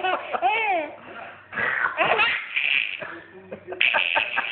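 Baby laughing in three bursts of giggles, with short quiet gaps between them.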